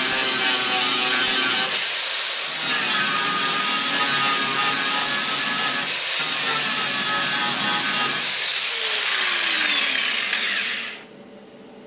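Angle grinder grinding down MIG welds on a steel car body panel: a loud rasp with a high whine over it, easing briefly twice. Near the end the grinder is switched off and spins down with a falling whine before going quiet.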